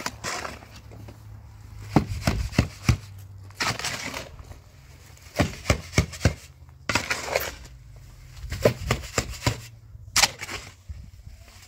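A series of sharp cracks and knocks in irregular clusters, with short rustling scrapes between them.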